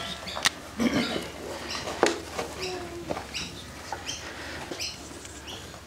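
Short high rising chirps repeating about every three-quarters of a second. Under them are scattered knocks and the rubbing of a cloth and a marker on a whiteboard.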